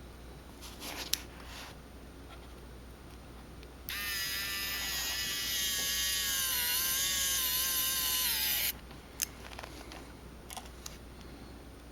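Wowstick electric precision screwdriver running for about five seconds as it drives a pentalobe screw into an iPhone 6 Plus, its whine dipping slightly in pitch midway and then cutting off. A few light clicks come before and after.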